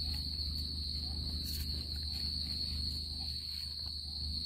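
Night insect chorus: a steady, high-pitched continuous trill over a low steady hum, with one short click about a second and a half in.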